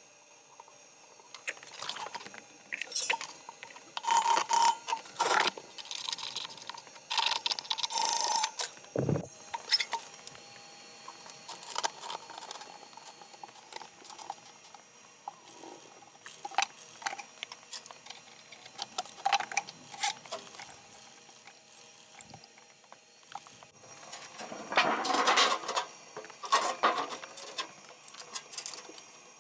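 Irregular clanks, knocks, scrapes and rattles of metal parts and tools being handled during work on a washing machine, with a deep thud about nine seconds in.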